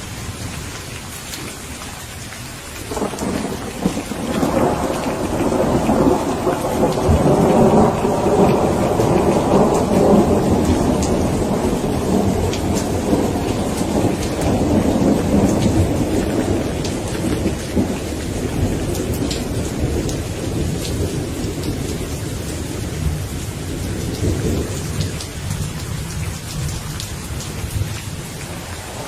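Steady rain with one long rolling peal of thunder. The thunder swells in about three seconds in, is loudest a few seconds later, and slowly rumbles away over some twenty seconds.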